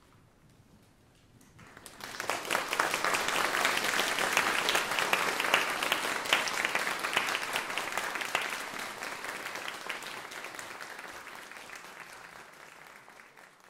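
Audience applauding. The clapping starts about two seconds in, swells quickly, then slowly dies away toward the end.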